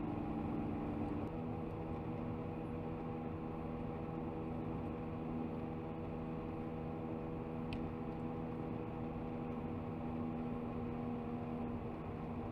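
Steady road and engine noise inside a car cruising on a highway, with a constant low hum.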